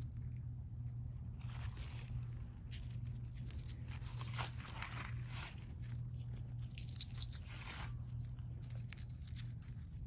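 Dry, mulchy raised-bed soil crunching and scraping as a hand digs planting holes and pushes garlic cloves in, in several short scratchy bursts over a steady low hum.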